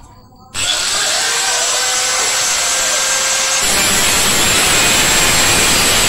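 Electric angle grinder switched on about half a second in, its whine rising as the motor spins up; about three and a half seconds in the cutting disc bites into the refrigerator's sheet-steel body panel and a harsh grinding noise takes over.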